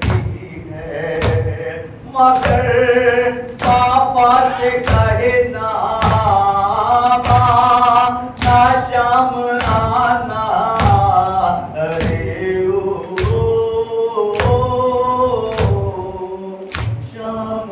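A man's solo voice chanting an Urdu noha, a Shia lament, in long wavering held notes. Open hands beat on chests (matam) in a steady thump a little over once a second, keeping time with the lament.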